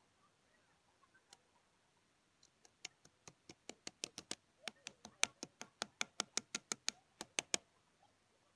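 Quick run of light metal taps, about five a second for some five seconds, starting faint and growing louder: a hand tool striking the castle nut and split pin at the centre of a tractor's front wheel hub.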